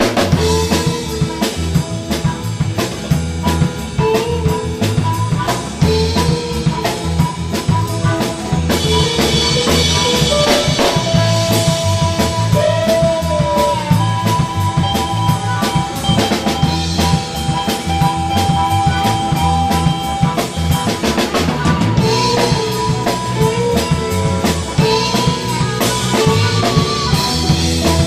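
Blues band playing: a drum kit keeps a steady beat under held melodic lines, one of them bending in pitch about halfway through.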